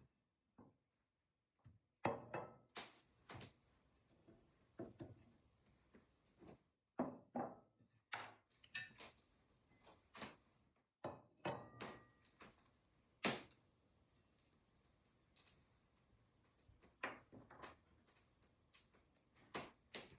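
Scattered light clicks and knocks, irregularly spaced, with a brief ringing ping about twelve seconds in.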